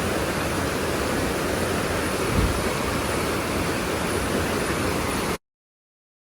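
Rushing water of a mountain stream: a steady, even roar with a heavy low rumble, which cuts off suddenly near the end.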